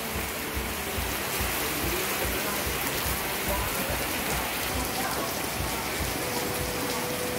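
Steady rain falling, an even hiss with irregular low thumps underneath.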